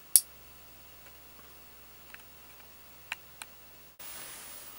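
A single sharp click just after the start, then a few faint ticks. From about four seconds in comes the faint hiss of an analogue television showing static.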